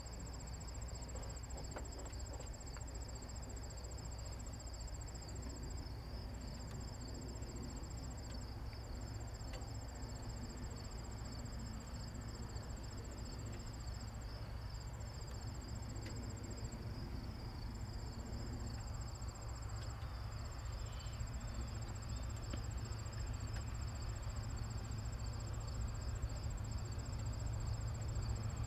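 Crickets chirping in steady high trills, a second, higher trill breaking off and starting again now and then. Under them a low rumble grows louder over the last several seconds as the CN diesel freight train draws near.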